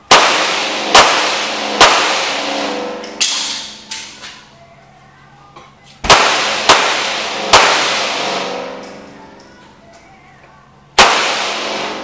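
Handgun shots in an indoor range, each echoing off the walls. Three quick shots, a pause of about four seconds, three more, then a single shot near the end.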